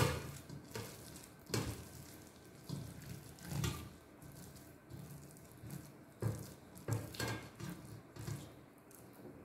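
Soft, wet bael (wood apple) pulp being rubbed across a stainless steel hand grater over a steel bowl in short, irregular scraping strokes, working the pulp off the seeds and fibres. A sharp click comes at the very start.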